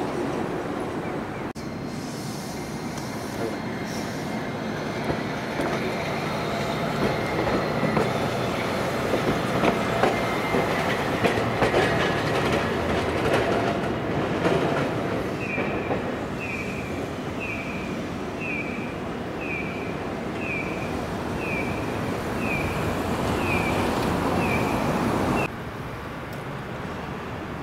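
Toyohashi Railway city-line tram running slowly round a tight curve, the wheels grinding and squealing on the rails as it swells closer. In the second half a short, high falling chirp repeats a little more than once a second. Near the end the sound drops suddenly to quieter street noise.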